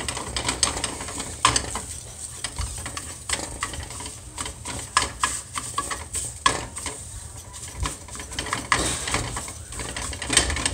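Spatula stirring and scraping scrambled eggs around a frying pan in irregular strokes, over a light sizzle of eggs that are still wet and cooking.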